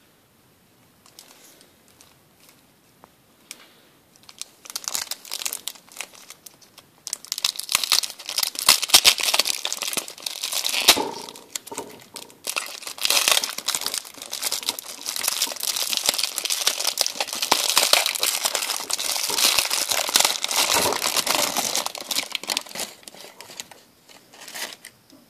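Plastic wrapping of a pork pie being crinkled and torn open. It starts as scattered crackles and builds into dense, near-continuous crinkling for most of the stretch, with a short lull partway through.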